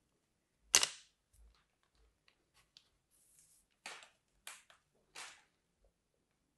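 Kinetic sand crunching as a plastic heart-shaped cutter presses into it: one loud, crisp crunch about a second in, then a few shorter crumbly crunches as the sand heart is lifted out and handled near the end.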